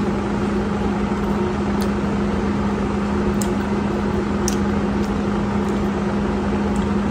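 Corn on the cob being bitten and chewed, a few sharp crisp clicks, over a steady hum with a constant low tone.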